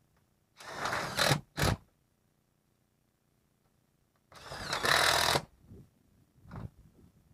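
Power drill running in two bursts about a second long and about three seconds apart, the first ending with a brief extra pull of the trigger, as screws are driven into sheet-metal roofing. A couple of faint knocks follow.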